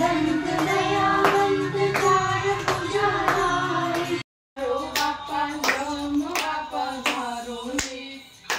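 Female voices singing a Ganesh aarti, with steady hand claps keeping the beat, a little over two claps a second. The sound cuts out completely for a moment about four seconds in, then the singing and clapping resume.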